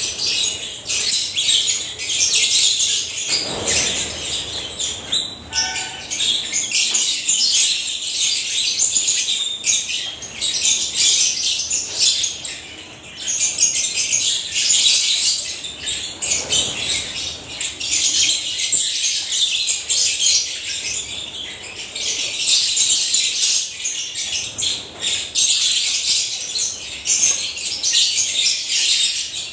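A flock of African lovebirds chattering and chirping continuously, a dense high-pitched clamour of many birds calling at once.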